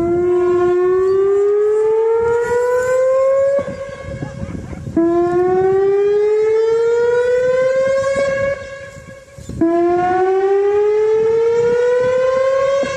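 Homemade emergency-alert siren tone: a buzzy pitched tone that sweeps slowly upward over about three and a half seconds, three times over, with a brief quieter held tone between the rises.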